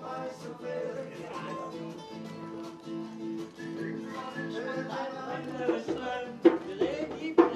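Acoustic guitar playing music, with sharp percussive hits starting about five and a half seconds in and getting louder.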